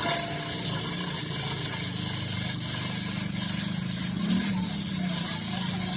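A workshop machine running steadily: a low hum under an even hiss, starting and stopping abruptly.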